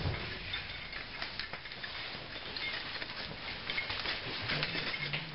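Scattered small clicks and shuffling as a group of people moves about on a concrete floor, with a faint voice near the end.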